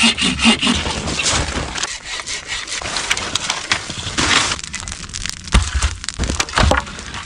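Firewood being cut by hand: a saw rasping through wood, with splintering cracks and knocks.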